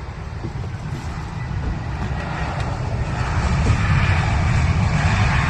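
Aircraft engine noise, a steady rushing rumble that grows louder as the plane comes closer.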